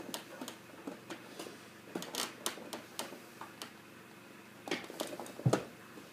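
Scattered light clicks and taps from printer parts being handled during disassembly, with a heavier knock about five and a half seconds in.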